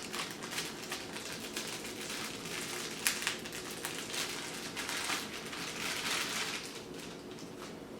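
Plastic packaging crinkling and rustling in irregular crackles as a wrapped part is unwrapped, with one sharp click about three seconds in.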